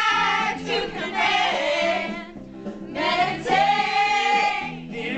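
A group of mostly female voices singing along to a karaoke backing track, with a short pause between phrases about halfway through.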